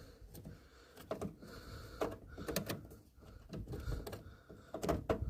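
Scattered light clicks, taps and scrapes of a RAM stick and computer parts being handled while it is lined up with the memory slot.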